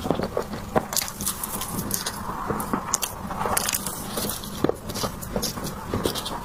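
Close-miked eating of dessert: chewing and biting, with many small irregular clicks and crackles.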